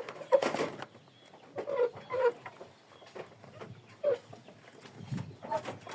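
Local kienyeji chickens clucking: a few short, spaced-out calls, with light taps between.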